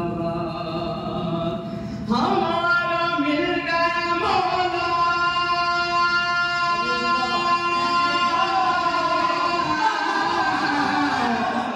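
A man singing a devotional poem into a microphone, drawing out long held notes, one of them held for about four seconds in the middle.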